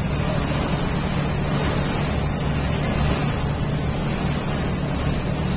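Water rushing and churning along the hull of a moving riverboat, over the steady low drone of its engine, with wind buffeting the microphone.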